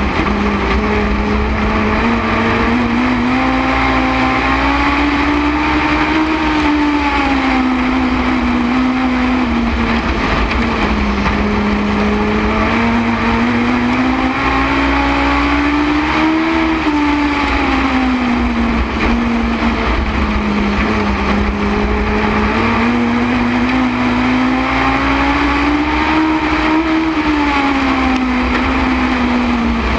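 Legends race car's Yamaha four-cylinder motorcycle engine at racing speed, heard from on board the car: the engine note climbs on each straight and drops back into each turn, three times about ten seconds apart, over a steady low rumble.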